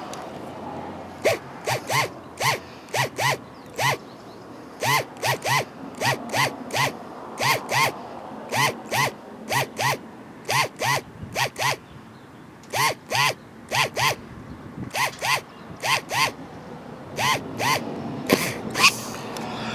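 Small electric drill boring a pilot hole through the outer glass layer of a windshield at a chip. It is run in many short trigger pulses, mostly in twos and threes, each spinning up and down.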